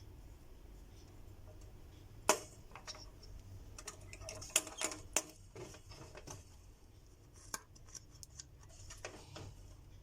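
Irregular small clicks and clinks of hard plastic and metal as computer parts are handled while a CPU fan or processor is being changed. A sharp click comes about two seconds in, then scattered taps and clinks to the end, over a faint low hum.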